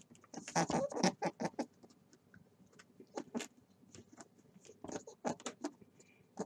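A rabbit grooming itself, washing its face and ears with its forepaws: a run of small, irregular clicks and scuffs, densest in the first second and a half, then in scattered clusters.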